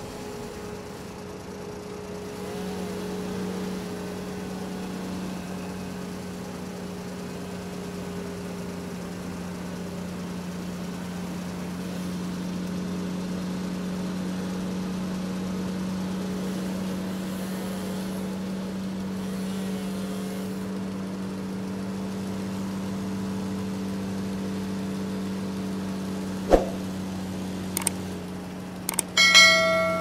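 Forestry harvester's engine running steadily at one constant pitch while the harvester head works the trees. Near the end come a sharp click and a short bright bell chime from a subscribe-button sound effect.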